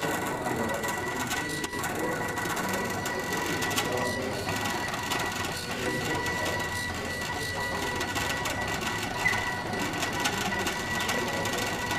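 A CNC pen plotter drawing: its stepper motors drive the X and Y axes back and forth with a continuous busy mechanical chatter and a steady high whine.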